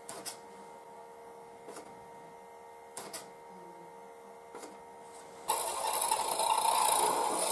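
Small electric motor of a rotating display turntable running with a steady hum and a soft click about every second and a half. About five and a half seconds in, a louder, rougher hiss takes over.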